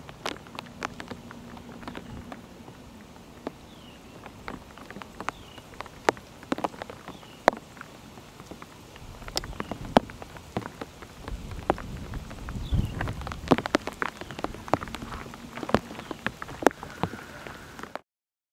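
Steady rain, with many separate sharp drops tapping close by over a soft hiss; it cuts off abruptly near the end.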